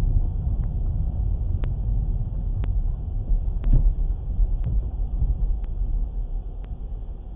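Low, steady rumble of a car's engine and road noise heard inside the cabin through a dashcam microphone while driving, with a faint tick about once a second.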